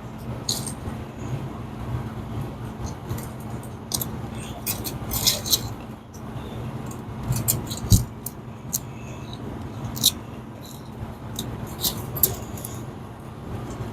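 Scattered light metallic clicks and taps from tools and small parts being handled while a high-limit switch is mounted, with one louder knock about eight seconds in, over a steady low hum.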